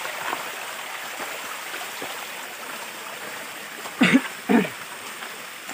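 Mountain stream water rushing down a rocky cascade, a steady hiss. About four seconds in come two short voice sounds from a person.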